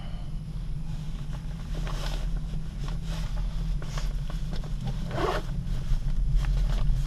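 Steady low rumble of a gondola lift cabin running along its cable, heard from inside the cabin, with scattered rustles and a short scrape about five seconds in.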